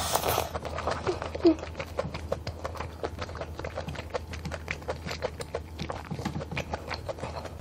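Close-up chewing of a mouthful of malatang (wide noodles, tofu skin, mushrooms), a fast run of small wet clicks and smacks, with a louder slurp as the food goes in at the start.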